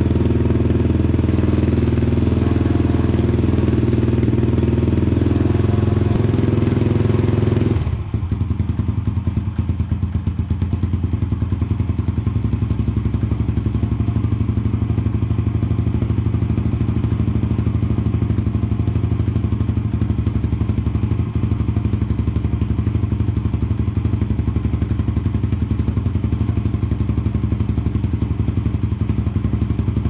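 Cold 2019 Yamaha TT-R 110's single-cylinder four-stroke, fitted with an FMF PowerCore 4 exhaust, idling high and even on choke. About eight seconds in the idle drops abruptly to a slower low idle, where each firing pulse can be heard.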